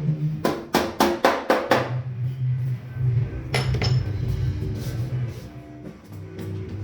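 Quick run of about six metallic taps, some four a second, then a couple more a few seconds later: a panel-beating hammer striking the car's steel fender. Background music plays under it.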